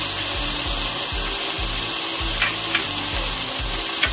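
Egg roll filling sizzling in a frying pan as it browns, a steady hiss, with soft scrubbing strokes of a pastry brush spreading sesame oil over egg roll wrappers on a baking sheet.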